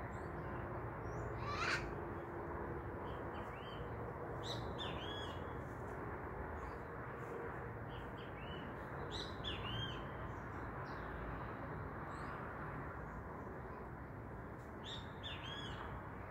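Wild parrots calling: one loud harsh squawk about two seconds in, then short groups of chirping notes every few seconds, over a steady low rushing background noise.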